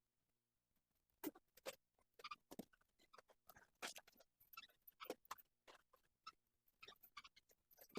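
Faint, irregular clicks and ticks, a few a second, of small repair tools working on an opened phone's plastic and metal frame, as when screws are driven out with a small screwdriver.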